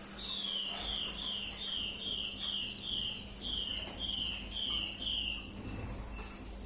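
A small animal, most likely a bird, calling a rapid series of about a dozen short high notes, roughly two a second, each falling in pitch. The series drifts slightly lower and stops about five and a half seconds in.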